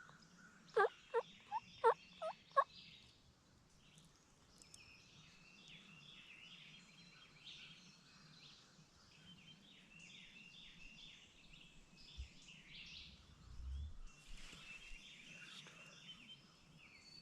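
A run of six loud turkey yelps, each note dropping sharply in pitch, about three a second, over songbirds chirping. A low thump follows about twelve seconds in.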